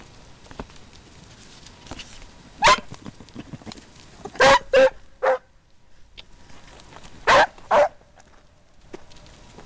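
Hunting hound barking: six short, loud barks in three groups, one, then three, then two, as it works a hare's scent.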